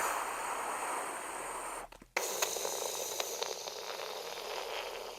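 A steady static-like hiss that breaks off for a moment about two seconds in, then resumes with faint clicks and fades near the end.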